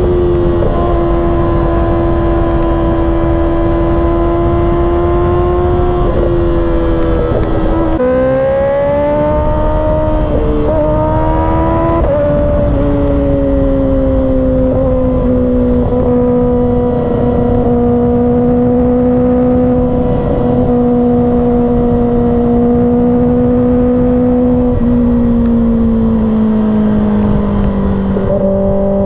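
2024 Kawasaki ZX-6R's 636 cc inline-four running at highway speed over a steady low rush. Its note dips and climbs with the throttle and drops in steps about eight and twelve seconds in and again near the end, as the quick shifter changes up a gear.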